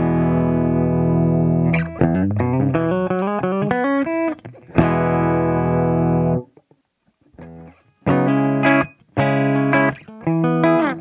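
Electric guitar improvising through a Wampler Ego compressor pedal into a Kemper-profiled Marshall amp: a long held chord, a quick run of single notes, another held chord cut off sharply, a pause of about a second and a half, then short choppy chords near the end.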